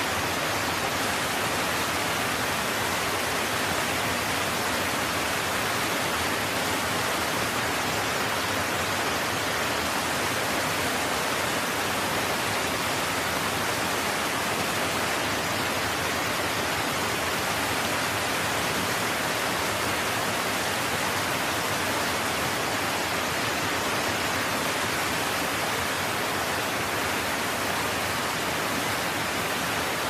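Chitrakoot Falls, a very wide waterfall on the Indravati River in heavy flow, making a steady, unbroken rush of falling water.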